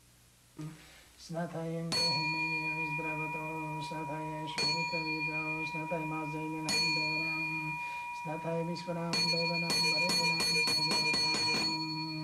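A man chanting in long, steady monotone phrases, joined by ringing, bell-like metal strikes: single strikes about 2, 4.5 and 7 seconds in, then a quick run of strikes near the end, each left to ring on.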